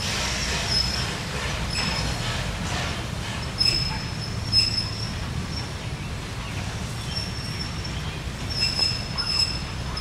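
Denton Farm Park No.9 steam train rolling with a low rumble, its wheels squealing against the rails in high, thin squeals that come and go several times.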